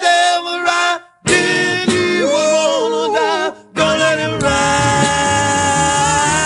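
Gospel vocal group singing the end of a song: a couple of short phrases break off, a singer runs a wavering melisma, then the voices settle into one long held closing chord with vibrato.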